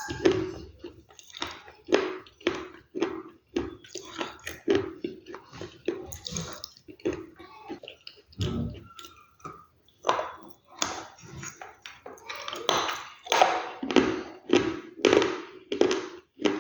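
Close-miked chewing of crunchy food: a steady run of crisp crunches, about two a second.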